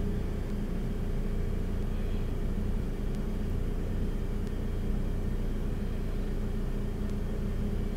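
Steady low mechanical hum and rumble with a faint constant tone, unchanging throughout; no distinct knocks or clicks stand out.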